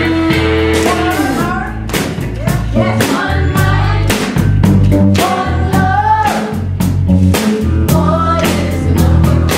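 Live rock band playing: electric guitar, bass and drum kit with voices singing. A held note slides down about a second in, then the singing comes in over the steady drum beat.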